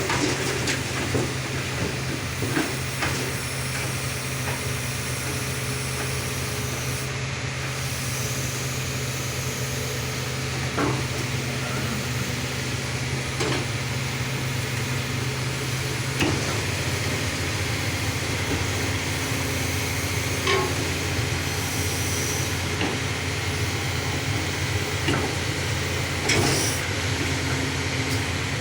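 Kobelco SK330 excavator's diesel engine running steadily as the machine climbs onto a trailer, its note shifting about halfway through, with a handful of sharp knocks scattered throughout.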